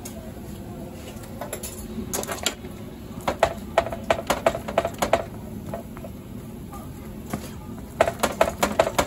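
Slotted metal spoon tapping and clicking against an electric griddle and pancake while spreading butter, in quick runs of taps with a short metallic ring, the longest runs from about three to five seconds in and again near the end.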